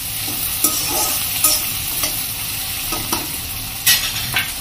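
Onions, potatoes and green chillies sizzling in hot oil in a kadhai while a metal slotted spatula stirs them, scraping and clinking against the pan. A louder metal clink comes near the end.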